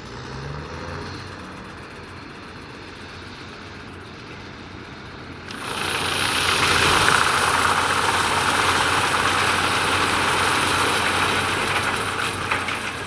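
Heavy diesel machine engine running steadily at a low hum; about five seconds in, a much louder rushing noise starts abruptly and holds until near the end.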